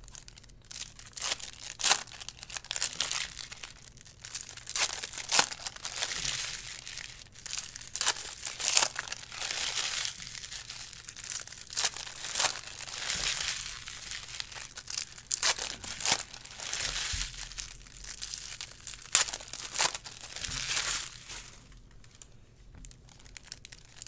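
Foil baseball card pack wrappers being torn open and crinkled by hand, an irregular run of crackling and tearing, with the cards handled in between. It quietens a couple of seconds before the end.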